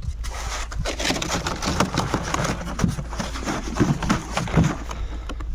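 Liquid urea ammonium nitrate fertiliser sloshing inside a 5-litre plastic canister as it is shaken, with irregular knocks and rattles of the plastic.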